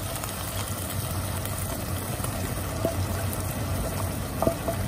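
Fresh cream poured into a pot of onions and bacon simmering in reduced white wine, the liquid bubbling steadily. Two light clicks, one about three seconds in and one near the end.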